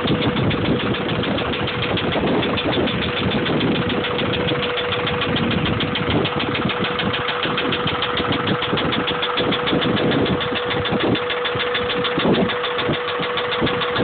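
Honda B16 1.6-litre VTEC four-cylinder engine idling steadily with a rapid, regular knock under a steady tone, which the owner takes for rod knock.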